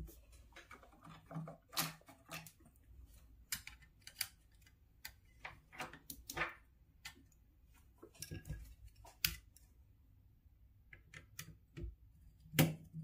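Faint, irregular clicks, taps and rustles of wires and a small screwdriver being handled at the screw terminal of a 3D printer control board, with the loudest tap near the end.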